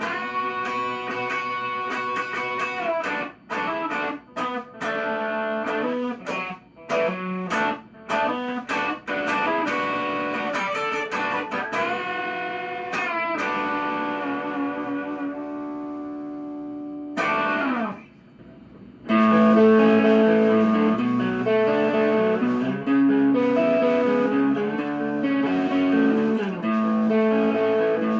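Gibson Les Paul Special electric guitar with a Bigsby B7 vibrato tailpiece, played through a Marshall Master Lead 30 amp. Short, choppy chords and phrases give way to a held chord that slides down in pitch; after a brief gap a louder, steadier riff follows.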